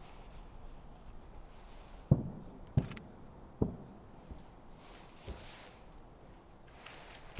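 Distant aerial firework shells bursting: a string of low booms, the loudest two about two and three seconds in, another soon after, then fainter ones and a further boom near the end.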